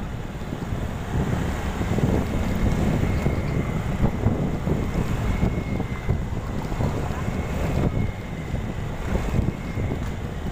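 Wind buffeting the phone's microphone on a moving motorcycle: a gusty rumble with the motorcycle running beneath it and a faint steady high whine.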